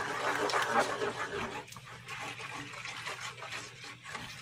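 A spoon stirring a coconut-milk curry sauce in a nonstick frying pan: wet swishing and scraping, loudest in the first second and a half, then softer.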